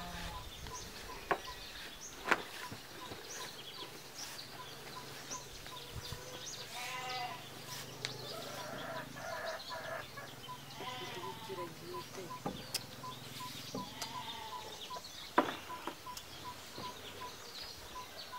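Farm animals bleating a few times around the middle, over a faint high chirp repeating about twice a second, with a few sharp knocks.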